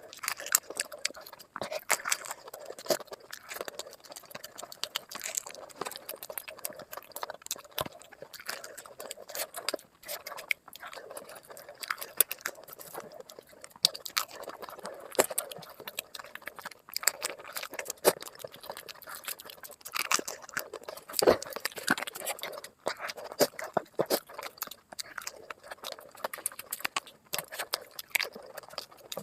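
Close-miked eating sounds: chewing, biting and wet mouth clicks in a dense, continuous run of short crackles.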